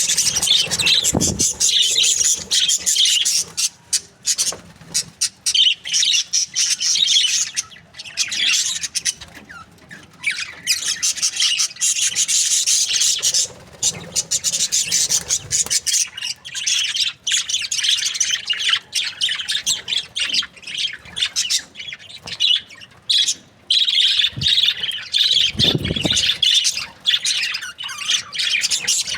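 Several budgerigars chirping and chattering without a break, a dense, high-pitched stream of warbles and short clicks.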